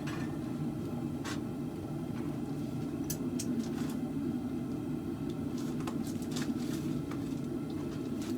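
Steady rumbling roar of a running forge, with a few faint light ticks of metal.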